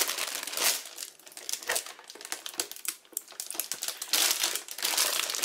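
Plastic pouch of date paste crinkling as it is squeezed and handled, in irregular crackly bursts that grow busier near the end.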